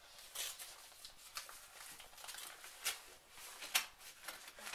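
Thin plastic mailer bag being torn open by hand: a series of short, irregular rips and crinkles, the loudest near the end.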